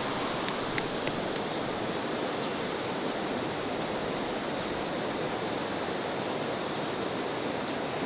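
Steady rush of a shallow rocky river. In the first second and a half, four light sharp taps as the boiled egg's shell is cracked, then faint ticks of the shell being peeled.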